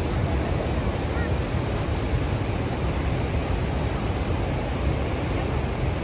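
Athirapally Falls on the Chalakudy River in high monsoon flow: a steady rush of falling water, heavy in the low end.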